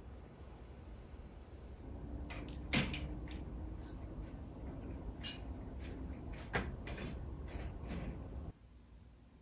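Horizontal window blinds being tilted open with the plastic wand: a run of light clicks and rattles from the slats and tilt mechanism, with two sharper clacks, cutting off suddenly near the end.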